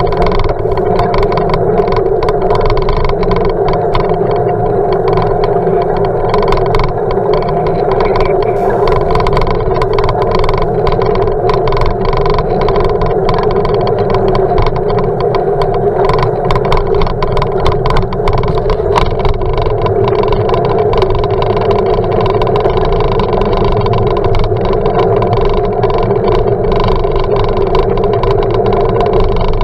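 Steady, muffled rumble of a bicycle ride picked up through an action camera's sealed waterproof housing, with frequent small knocks and rattles as the bike rolls over the paving.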